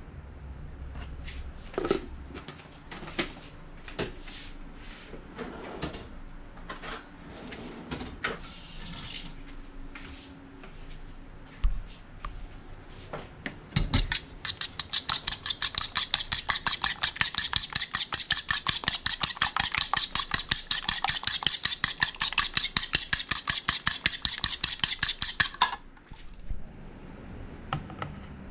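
A metal fork whisking an egg with seasonings in a plastic mixing bowl, the tines clicking against the bowl in a fast, even rhythm for about twelve seconds before stopping abruptly. Before that come scattered taps and knocks.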